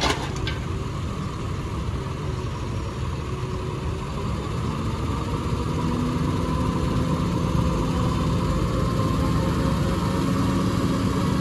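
Truck engine idling steadily, growing a little louder in the second half, with a short knock right at the start.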